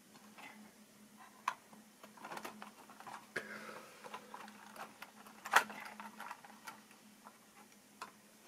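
Plastic model railway wagons being handled on the track: scattered light clicks and knocks as a hand sets and adjusts the rolling stock, the sharpest knock a little past halfway. A faint steady hum runs underneath.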